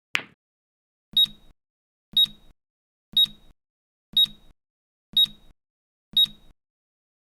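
One sharp click of the Newton's cradle, ending its once-a-second clacking, then six short high-pitched electronic beeps, one a second: the countdown timer's end alarm.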